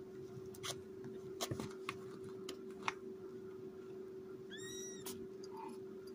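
A young kitten gives one short, high-pitched mew that rises and falls, about four and a half seconds in. Before it come a few sharp clicks, and a steady low hum runs underneath.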